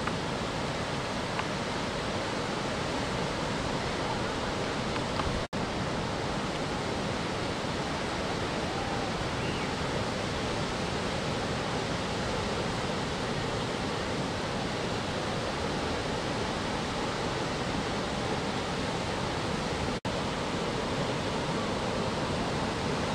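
Steady, even wash of breaking ocean surf, broken by two momentary gaps, one about a quarter of the way in and one near the end.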